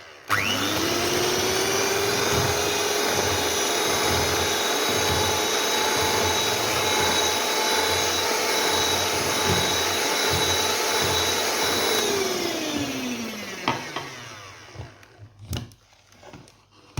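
Electric mixer beating eggs and sugar as oil is added gradually. The motor speeds up with a rising hum, runs steadily for about twelve seconds, then winds down and stops.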